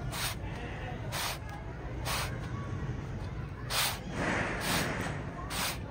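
Roti cooking on a hot iron tawa: short hissing swishes about once a second as it is pressed down with a cloth and lets off steam, over a low steady rumble.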